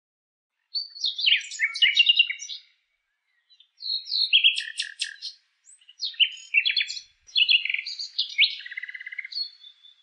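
Nightingale singing: several phrases of quick chirps, rapid trills and whistles with short pauses between them, ending on one long steady whistle.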